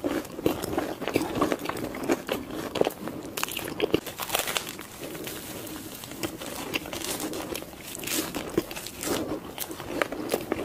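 Close-miked biting and chewing of a sugar-coated Korean cheese corn dog: the crisp batter crust crackles and crunches in quick, irregular clicks between the teeth, along with wet chewing of the soft cheese filling.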